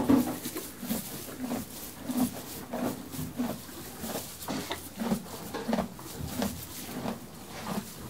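Horse chewing hay, a steady rhythm of crunching chews a little under two a second.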